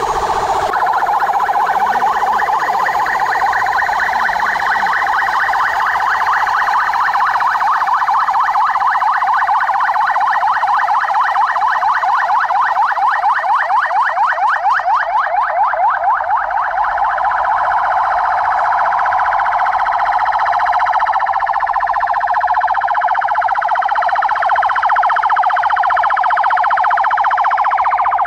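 Several police car sirens sound together, overlapping wails that sweep up and down without a break. For a few seconds around the middle they switch to a fast yelp.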